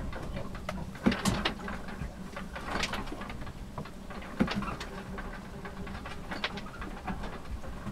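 Irregular creaks, clicks and knocks from a small sailboat's cabin and fittings as the boat rolls at anchor, heard inside the cabin over a steady low hum.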